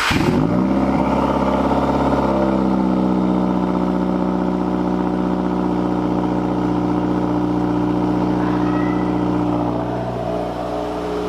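Car engine just started, fitted with a freshly installed Cobb intake: it rises to a fast idle in the first moments, then idles steadily, settling slightly lower near the end.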